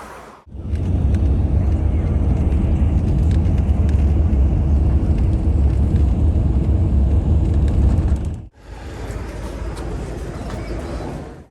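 Steady low rumble of a moving road vehicle, in two stretches joined by abrupt cuts, the second one quieter.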